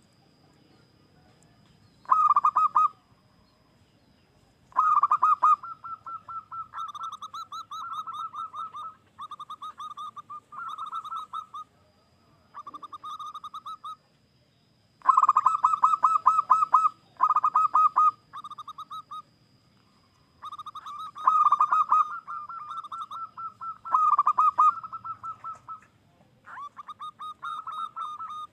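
Zebra dove (perkutut) cooing: phrases of rapid, rolling staccato coos, repeated in bursts of a second or more with short pauses between them.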